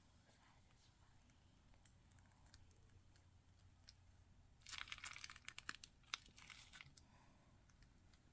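Packaging crinkling and rustling in a cluster of crackles about two seconds long, a little past the middle. The rest is near silence.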